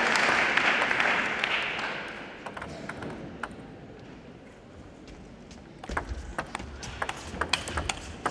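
Applause dies away over the first couple of seconds. A few light taps of a table tennis ball follow. From about six seconds in, a fast rally starts: the plastic ball clicks off rackets and the table in quick succession, with low thuds of the players' footwork on the court floor.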